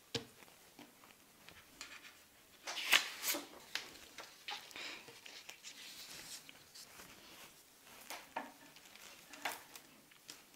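Quiet handling sounds: sheets of paper rustling and sliding on a tabletop, with a few light taps and clicks. The loudest rustle comes about three seconds in.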